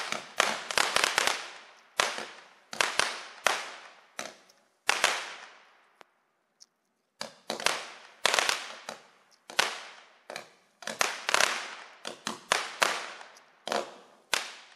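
Premium Color Pearl, a Winda Fireworks standard cake, firing a string of small Roman-candle-style shots at about two a second, each a sharp pop with a short fading tail. There is a brief pause about halfway through.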